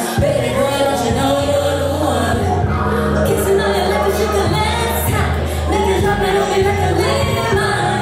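Music with a singing voice over sustained bass notes that change every second or so.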